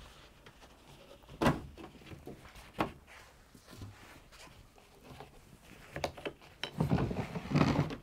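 Sharp plastic clicks as a condenser tumble dryer's lower access panel is unclipped and set aside, then a run of plastic clattering and scraping near the end as the heat exchanger unit is drawn out of its housing below the drum.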